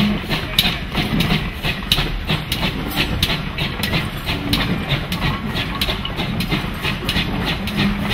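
Pannier tank steam locomotive pulling a train of coaches, running steadily with a regular rhythm of sharp beats and wheel clicks about twice a second over a continuous rumble.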